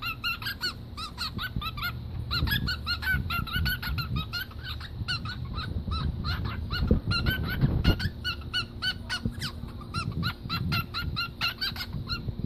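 A pet bird calling in a rapid run of short, repeated honking chirps, about four or five a second, with low rustling and handling noise underneath.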